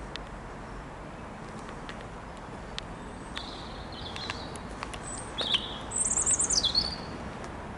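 Small songbirds chirping in short high calls, with the loudest a rapid, falling trill about six seconds in, over a steady low background rumble.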